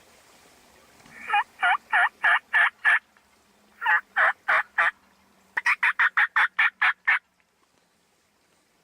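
Turkey yelping in three runs of loud, evenly spaced yelps: about six, then four, then about nine quicker ones, each run stopping abruptly.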